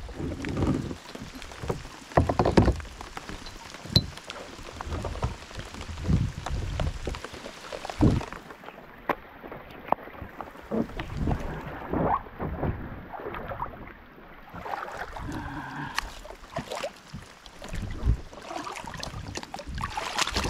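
Shallow water splashing and sloshing around a plastic sit-on-top kayak at the bank, with irregular knocks and bumps against the hull.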